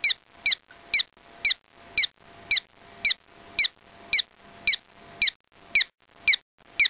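Electronic bird circuit built on a Tandy/Radio Shack Science Fair electronics kit, chirping through the kit's speaker. It makes short, identical chirps that fall in pitch, repeating evenly about twice a second.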